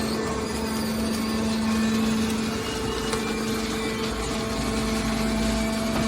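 Hydraulic can baler's power unit running with a steady hum, a deeper rumble building up about four seconds in.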